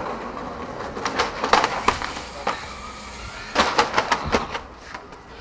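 Sharp knocks and clacks in two quick clusters, one about a second in and another about three and a half seconds in, over a steady background hum.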